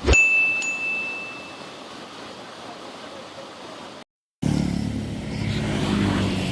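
A sharp hit with a high ringing ding that fades over about a second and a half, like an editing chime. After a brief cut to silence, a motor vehicle's engine runs steadily close by.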